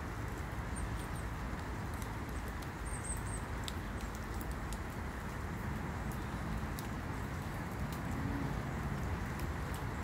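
Steady outdoor background noise with a few faint, short, high chirps from a small bird about one second and three seconds in.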